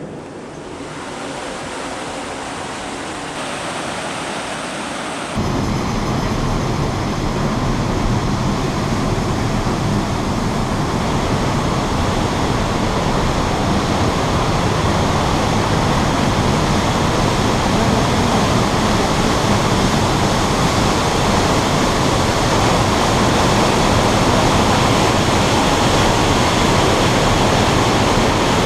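Waterfall rushing: a steady, dense noise of falling water that swells over the first few seconds, jumps louder about five seconds in, and then holds.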